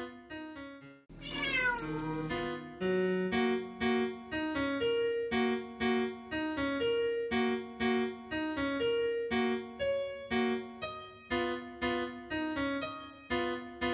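A cat meows once about a second in, one long call falling in pitch, over background piano music that plays on through the rest.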